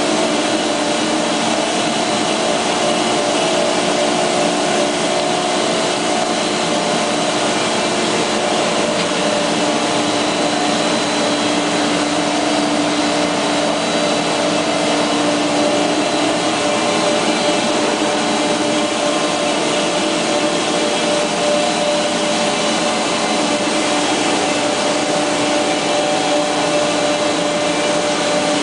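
CM-PRD 120 two-stage plastic recycling pelletizing line running: extruder and strand pelletizer give a loud, steady machine drone with several constant humming tones over a broad hiss.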